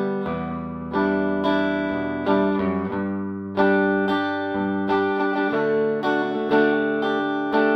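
Fender Telecaster electric guitar played clean through a Fender '57 Tweed Twin amp with no effects. Chords are struck about once a second and left to ring.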